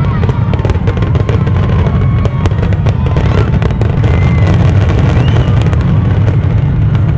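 A dense, continuous barrage of fireworks: deep booming shells overlapping without a break, with many sharp cracks and crackles on top.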